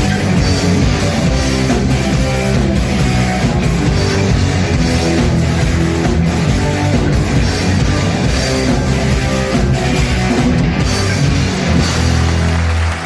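Rock band playing an instrumental passage on electric guitar, bass and drum kit with a steady beat, ending on a held chord that cuts off at the very end.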